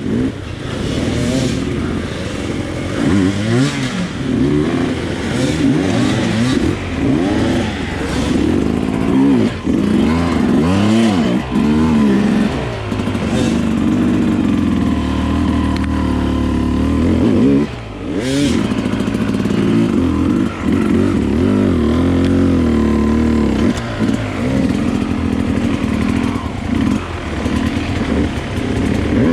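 Dirt bike engine revving up and down continuously as it is ridden on an enduro trail, the pitch climbing and dropping every second or two, with a few sharp knocks along the way.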